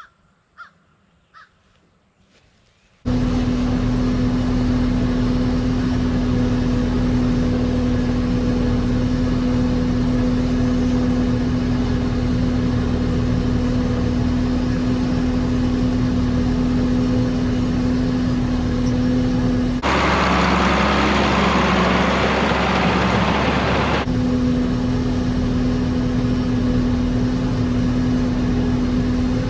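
Near silence with a few faint clicks, then, about three seconds in, a tractor engine starts to be heard running steadily with a constant hum. About two-thirds of the way through, a louder, rougher stretch of machinery noise at a lower pitch lasts about four seconds before the steady engine hum returns.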